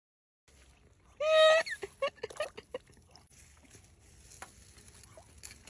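Ducks quacking: one loud quack about a second in, then a quick run of shorter quacks, followed by a few faint clicks.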